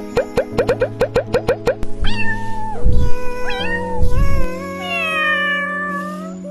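A cat meowing several times, ending in one long meow that falls slightly in pitch, over soft background music. The music opens with a rapid run of short clicking notes.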